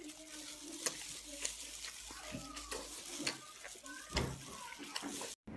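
Close, wet chewing and lip-smacking of a man eating a piece of meat, heard as a string of faint irregular clicks. The sound breaks off suddenly near the end.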